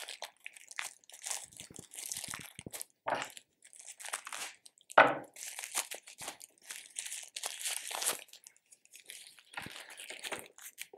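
Packaging crinkling and rustling in irregular bursts as small parts are unwrapped by hand, with a short knock about five seconds in, the loudest sound.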